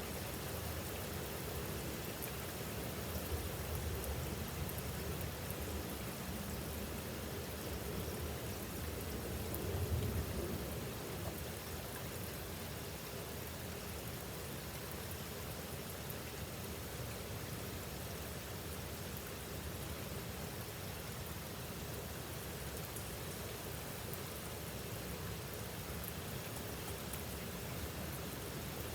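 Heavy rain falling steadily, an even hiss of rain on surfaces, with a brief low swell about a third of the way in.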